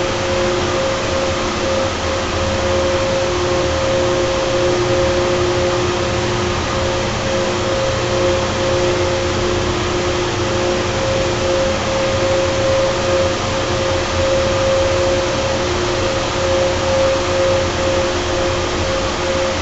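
Carrier 30HX 230-ton chiller's screw compressors running steadily: a constant two-note whine over a broad, even mechanical noise.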